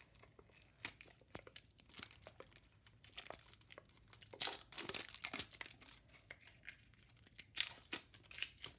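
Irregular crinkling and tearing of packaging as a roll of washi tape is opened and handled by hand, with louder bursts about halfway through and near the end.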